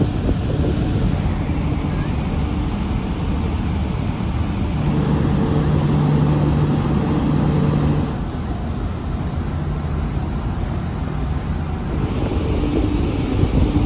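Steady low drone of a large ferry's engines and funnel exhaust, with a hum that grows stronger for a few seconds in the middle, under wind on the microphone. Near the end the rushing hiss of the ship's wake rises.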